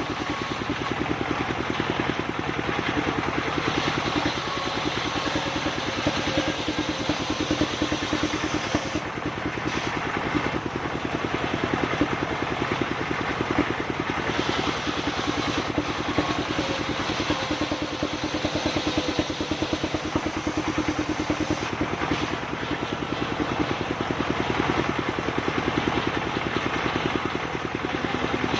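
Engine-driven sawmill machine running steadily, its motor pulsing evenly with a steady mechanical din.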